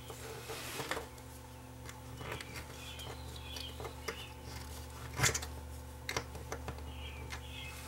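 Small metal pick clicking and scraping against a small circuit board and its plastic parts during a teardown, in scattered light clicks with one sharper click a little past five seconds in, over a steady low hum.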